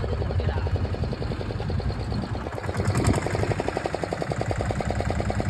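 Fishing boat's engine running steadily under way, a low rumble with a rapid, even beat. A brief sharp sound rises over it about three seconds in.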